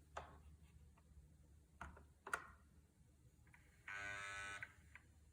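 A few faint clicks, then a short electric buzz of under a second from the 2018 Triumph Tiger 1200 as its keyless ignition sequence starts, now that the smart key fob is being sensed.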